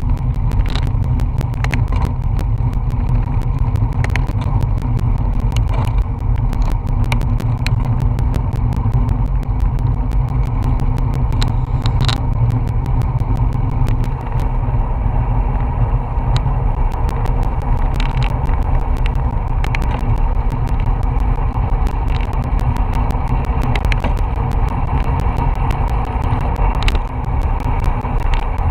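Wind rushing over a bicycle-mounted action camera's microphone at about 20 mph, a steady low rumble with road and tyre noise underneath. Frequent small clicks run through it.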